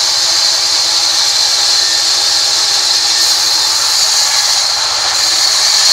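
Large vertical band saw cutting lengthwise through a mahogany log, a steady high-pitched hiss from the running blade.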